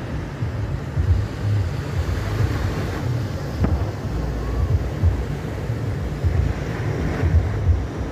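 Wind buffeting the phone's microphone in irregular low gusts, over the wash of small waves breaking on a sandy beach.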